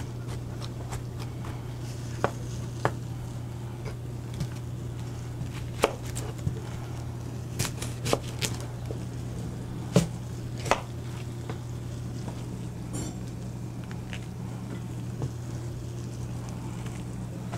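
Kitchen knife chopping green pepper and onion on a cutting board: scattered, irregular knocks of the blade against the board, over a steady low hum.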